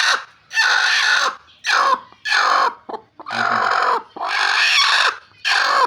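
Broody hen sitting on eggs giving loud, harsh protest calls, about six in a row, each under a second long, as she is disturbed on the nest.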